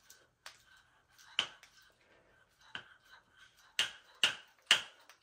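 Sharp clicks and taps from handling the metal ring-terminal connectors and screws on an electric dirt bike motor controller's wiring: about six in all, one loud one a little over a second in and three loud ones in quick succession near the end.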